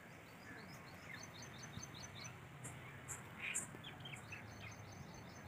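Faint chirping of a small bird: a quick run of short high notes about a second in and another near the end, over faint background noise.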